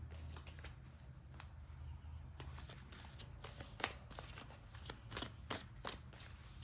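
A tarot deck being shuffled by hand: a quick run of short card clicks and flicks starts about two and a half seconds in, with one sharper snap near the middle, over a steady low hum.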